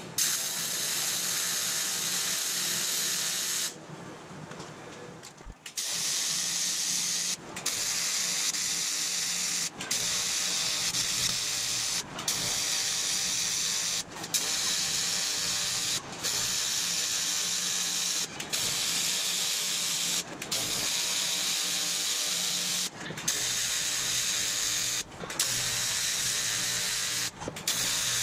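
AC TIG welding arc on aluminum sheet, a steady buzzing hiss. It cuts out briefly about every two seconds as the arc stops and restarts along the seam, with a longer break about four seconds in.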